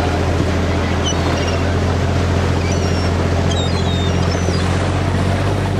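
Boat engine running steadily, a constant low drone. Gulls give a few short, faint high calls over it, about a second in and again around three to four seconds in.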